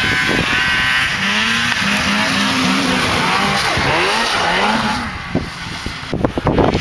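Snowmobile engine revving up and easing off, its pitch rising and falling as it speeds along. It fades about five seconds in, leaving uneven low rumbles.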